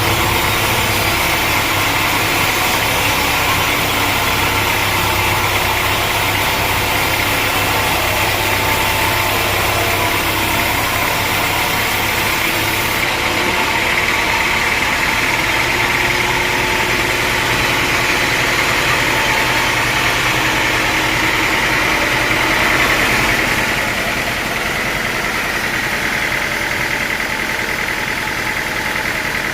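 Sawmill saw machinery running steadily, a continuous mechanical drone with a strong high hum. The sound eases slightly about two-thirds of the way through.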